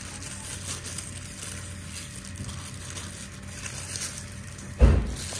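Faint kitchen handling sounds as salt is sprinkled and rubbed over raw fish, over a low steady hum, with one dull thump near the end.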